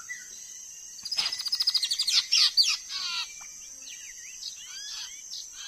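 White-rumped shama (murai batu) singing: a fast run of repeated notes about a second in, then varied whistles and slurred chirps.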